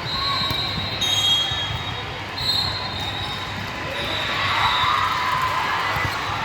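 Court play in a gym: athletic shoes squeaking sharply on the floor several times, with knocks of the ball and player voices calling out during the rally.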